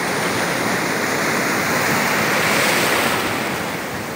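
Sea surf breaking and washing up the sand in a steady rush, which swells about two to three seconds in and then eases.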